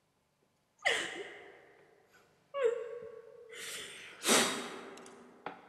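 A woman gasping, moaning and letting out breathy sighs in pain, three times, the last the loudest.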